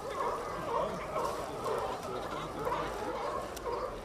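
A crowd of California sea lions barking over one another in a continuous, overlapping chorus.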